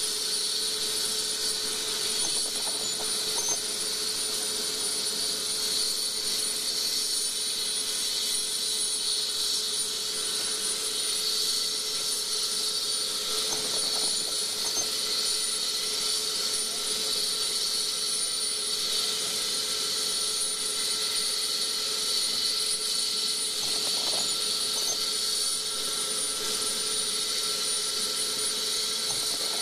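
Air-ambulance helicopter's turbine engines running steadily: an even whine over a constant hiss, with no change in pitch.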